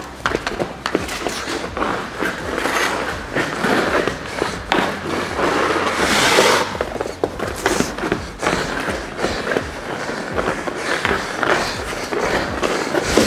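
Ice hockey skate blades carving and scraping on rink ice through crossover strides, turns and stops, with a louder spraying scrape a little after six seconds in.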